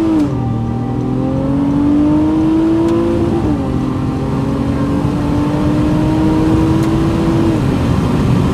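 Honda Accord's 3.5-litre V6 accelerating hard, heard from inside the cabin. The engine note climbs steadily and drops sharply with each upshift, three shifts: just after the start, about a third of the way in, and near the end.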